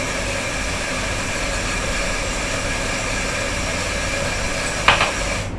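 Electric espresso grinder running steadily as it grinds an 18-gram dose of coffee beans, then cutting off suddenly near the end.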